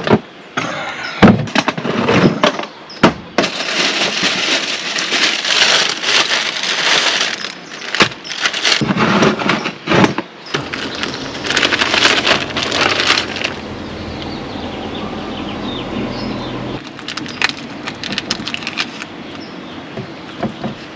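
Gear being handled: sharp knocks and clatter, with long stretches of loud rustling.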